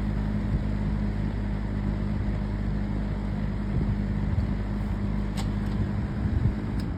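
2004 Haier five-blade box fan running on low speed: a steady rush of air with a steady motor hum.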